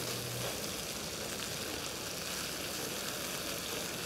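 Flour-coated liver pieces sizzling steadily in hot oil in a frying pan, with tongs turning them over.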